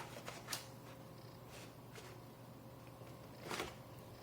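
Faint handling noise from the open laptop: a few light clicks and taps scattered through, over a steady low hum.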